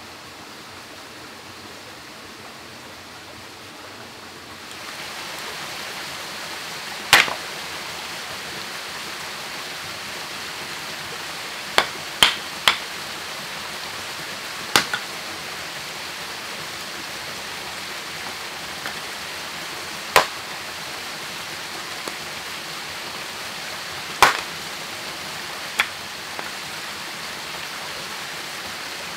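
Steady rushing noise of flowing stream water, stepping up in level about five seconds in. Over it come single sharp clicks or snaps every few seconds, a quick cluster of three near the middle.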